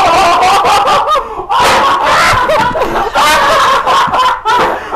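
Loud laughter from a group of men, in long fits broken by short pauses.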